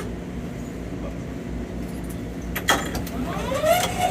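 Steady low rumble of a moving commuter train heard inside the railcar, with a couple of sharp clanks about two and a half seconds in, followed by a rising, then held squeal near the end.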